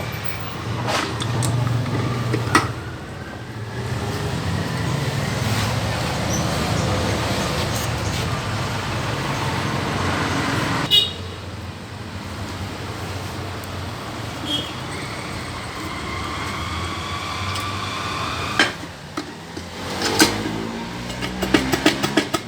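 Motor vehicles running with engine pitch rising twice, like vehicles pulling away on the road, over a steady low rumble. Sharp metallic clicks and a quick run of clinks near the end, like tools being handled.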